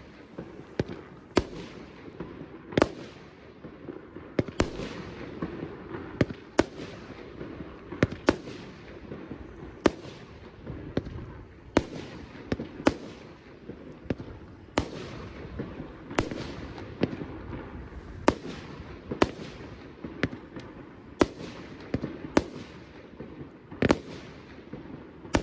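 Jorge Serafin 30 mm consumer firework battery firing shot after shot, about one sharp bang a second, each bang tailing off into a brief fading rush.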